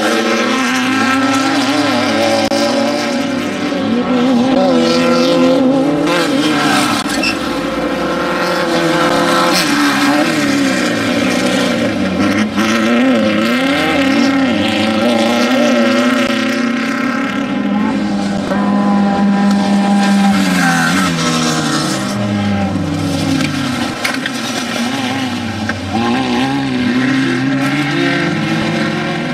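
Off-road desert racing vehicle engine revving hard, its pitch rising and falling again and again with the throttle, over a steady hiss.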